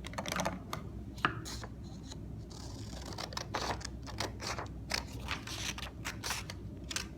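Scissors cutting through paper along a line: a run of quick, irregular snips with paper rustling.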